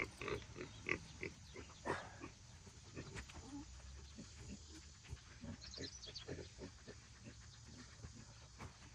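Pigs grunting: a run of short, quick grunts, densest in the first few seconds, with a few light metallic clinks about six seconds in.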